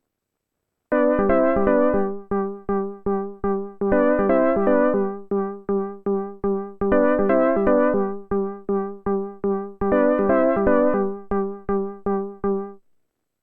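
Korg Minilogue analog polyphonic synthesizer playing a preset: a repeating pattern of short, separate notes over a held low pitch, in four similar phrases of about three seconds each. It starts about a second in and stops shortly before the end.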